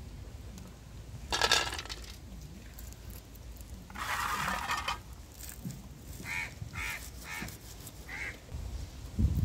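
Birds calling: one loud call about a second and a half in, a harsher call around four seconds in, then a run of four short calls.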